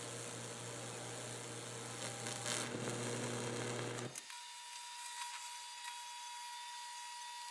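Lichtenberg burn rig powered by an old microwave-oven transformer: a steady electrical hum with crackling and sizzling as the current burns a fractal pattern through the wet wood. It grows louder about two seconds in, then cuts off suddenly about four seconds in, leaving a faint steady high tone.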